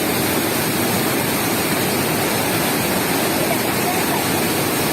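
Fast-flowing floodwater rushing in a steady, unbroken torrent.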